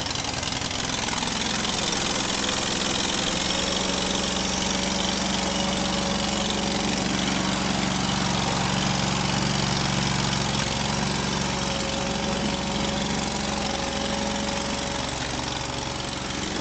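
Small four-wheel-drive tractor's engine idling steadily, just after a hard cold start.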